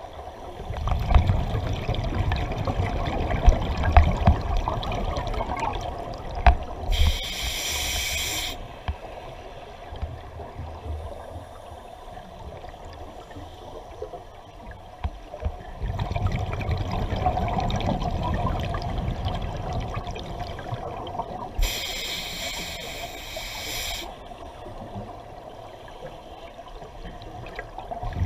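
Scuba diver breathing through a regulator underwater: a long bubbling rumble of exhaled air, then a short hiss of inhalation through the regulator, twice, at a slow breathing pace.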